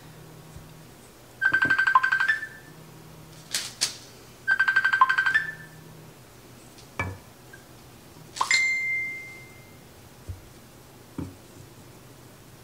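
Electronic ringing, like a phone ringtone: a rapid fluttering trill with a steady high note and a short rising tone, sounding twice about three seconds apart. Between the rings come a few light clicks and taps, and a click followed by a single held high beep a little past the middle.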